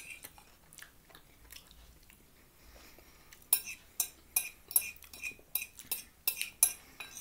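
Metal fork clinking and scraping against a plate while food is gathered up. Faint and sparse at first, then from about halfway in a quick run of sharp clicks, about four a second.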